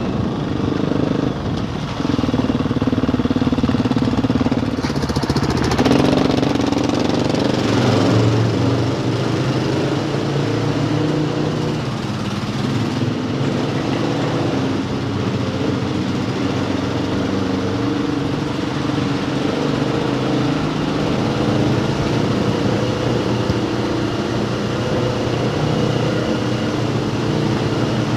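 Enduro motorcycle engine running under way, heard from a camera mounted on the bike. Its pitch shifts with throttle and gear changes over the first several seconds, then runs steadier as the bike rides on through a narrow tunnel.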